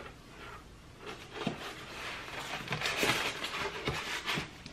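Shipping packaging being handled: the protective wrap sheet rustling and the foam inserts and cardboard box knocking lightly, a few scattered taps with a longer stretch of rustling in the second half.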